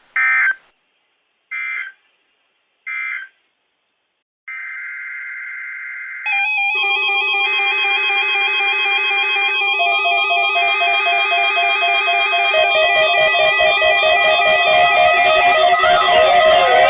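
Three short digital data bursts from a NOAA Weather Radio broadcast, about a second and a half apart: the SAME end-of-message tones that close an EAS alert. After a brief steady tone, guitar music starts about six seconds in and grows louder.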